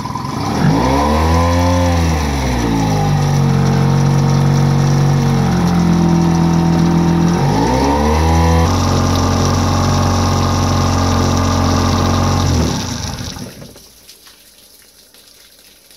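Yamaha outboard motor running at a fast idle, revved up and back down about a second in and again around eight seconds, then running steady until it dies away about thirteen seconds in. With the fuel line unplugged from the tank, the motor is burning off the fuel left in its carburettor, run dry so the jets don't gum up in storage.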